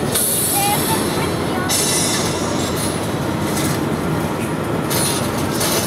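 Steady road and wind noise inside a moving Ford Excursion, with spells of sharper hiss that come and go a few times.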